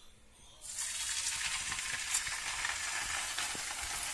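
Pieces of marinated moray eel laid into hot oil in a frying pan, sizzling: the hiss starts suddenly about a second in and holds steady, with scattered crackles.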